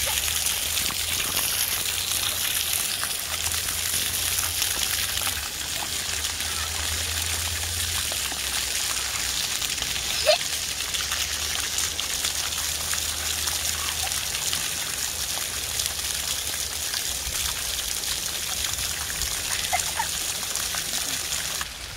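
Splash pad ground jets spraying water that patters down onto the wet paving in a steady hiss. A brief high squeak about ten seconds in.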